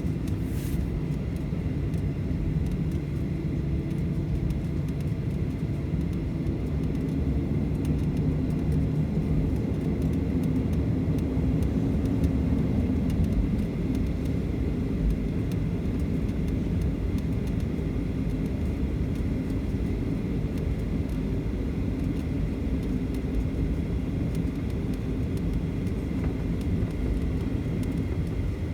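Cabin noise inside a Boeing 737 on the ground after landing: a steady low rumble of the idling jet engines and airframe, with a thin steady high whine.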